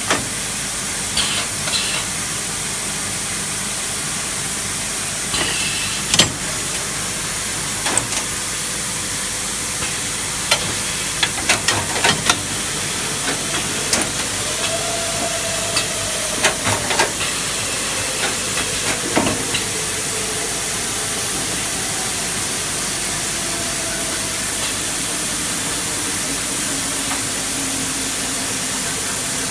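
Automatic ring (coil) binding machine running: a steady hissing noise with scattered sharp clicks and knocks from its mechanism, and a faint tone slowly falling in pitch in the second half.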